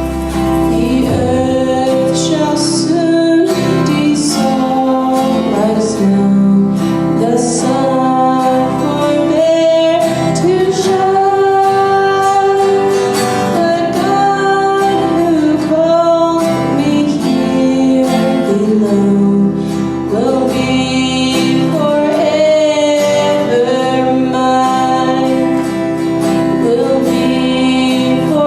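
A song: singing over guitar accompaniment.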